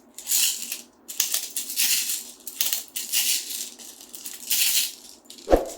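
Airsoft BBs rattling in a BB speed loader as it is pumped to load a gas-pistol magazine, in a series of short rattling strokes, with a single knock near the end.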